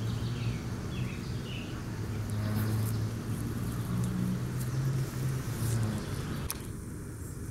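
Steady low hum of a distant motor, with a few faint high chirps near the start and a sharp click near the end.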